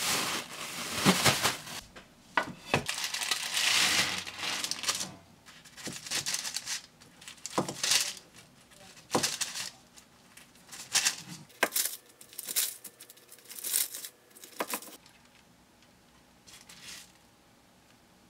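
A plastic bag of torn lettuce shaken and crinkled, followed by a chef's knife slicing fried chicken tenders on a wooden cutting board in a string of sharp, separate cuts.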